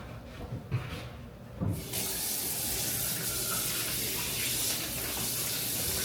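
A kitchen tap is turned on about two seconds in and runs in a steady stream, after a couple of soft knocks.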